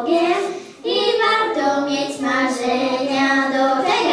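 Three girls singing a Polish Christmas song into microphones, holding long notes, with a short break for breath about a second in.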